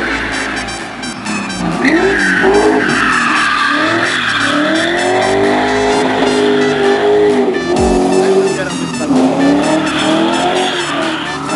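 A drift car's engine revving up and down as it slides through the corners, with its tyres squealing against the asphalt.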